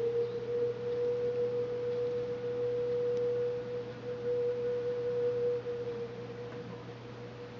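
A single steady pure tone, mid-pitched and without overtones, that fades out about six to seven seconds in, over a low steady hum.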